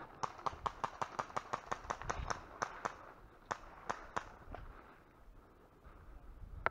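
Airsoft gun firing a quick string of sharp shots, about six a second for nearly three seconds, followed by a few single shots.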